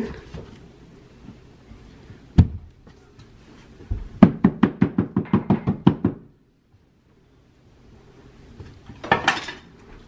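A single knock, then about two seconds of quick tapping, some seven taps a second: a hand float knocked against freshly set glass subway tiles to bed them into the thinset.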